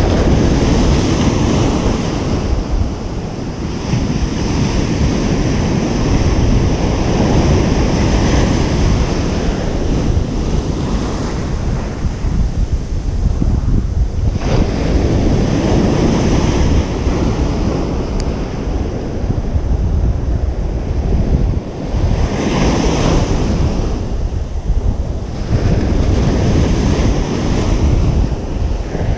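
Ocean surf breaking on a beach: a continuous loud wash of waves that swells and eases, with stronger surges about halfway through and again about three quarters of the way in.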